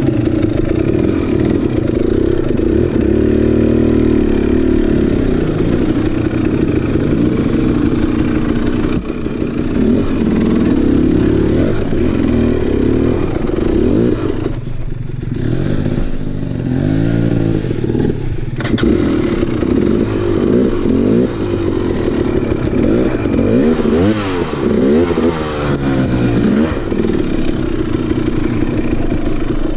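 KTM dirt bike's two-stroke engine revving up and down in short throttle blips while crawling over rock slabs. About halfway through, the revs drop off briefly before picking up again.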